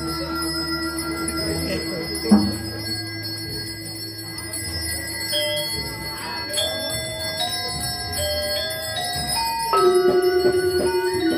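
Music of ringing, bell-like metallic tones: long held notes under a melody that steps upward note by note, with one sharp knock about two seconds in.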